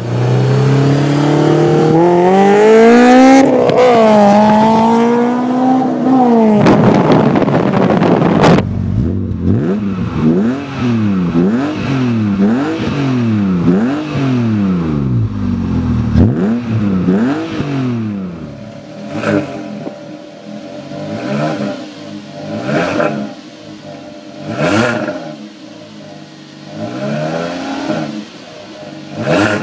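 Several modified car exhausts revving in turn: a Honda S2000 four-cylinder with an aftermarket dual exhaust, a 1998 BMW E36 M3 with a Corsa exhaust, and a straight-piped VW Jetta 2.5 five-cylinder. First comes a long rev that climbs and is held, then quick throttle blips about one a second, then sharper revs about two seconds apart.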